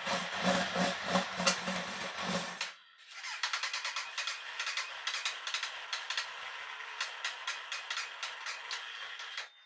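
Kawasaki Z1000 inline-four being turned over on its electric starter: cranking with a steady rhythm of compression pulses, about three a second, for roughly three seconds without catching. After a short break comes a second, longer spell of whirring with rapid clicks, and still no sign of the engine running. This is a no-start.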